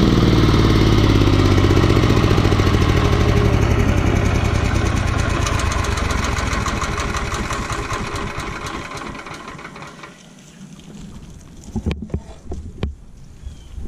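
Small stump grinder's gas engine shut off and winding down, its firing pulses slowing and fading over about ten seconds as it coasts to a stop. A few knocks follow near the end.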